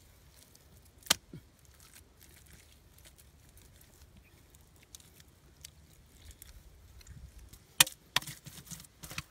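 Bare hands digging and scooping wet mud and clay out of a hole, mostly soft and faint, with a few sharp wet slaps: one about a second in and several more near the end.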